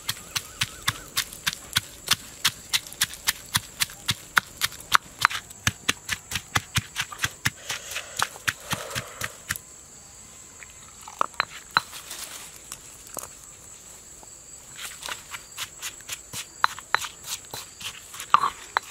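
Pestle pounding chilies in a mortar, a rapid even run of strikes about four a second. It breaks off for a few seconds around the middle, with only a few scattered knocks, then starts again.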